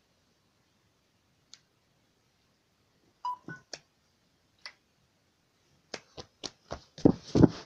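Handling noise from a phone and its charger: scattered sharp clicks and taps, a brief beep about three seconds in, then a quickening run of knocks and thuds, loudest near the end as the recording device is grabbed.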